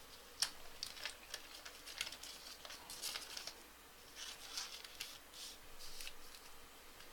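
Trading cards being handled: faint, irregular clicks and short rustles as cards slide against one another and are flicked through a pack.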